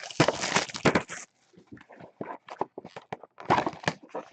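Trading-card packaging and plastic card holders being handled: dense crinkling and clicking for about the first second, sparse small clicks, then another short burst of crinkling near the end.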